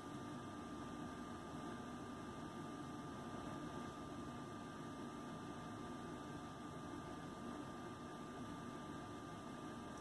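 Faint, steady room hum and hiss with a thin, steady high tone running through it. No separate clicks or calls stand out.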